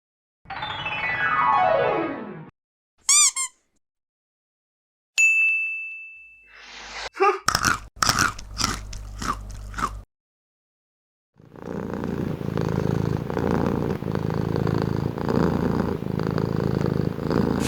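A string of separate sound effects with pauses between them: first a falling glide, then a short wavering tone, then a held high tone, then a run of sharp clicks and knocks, and finally several seconds of steady noise.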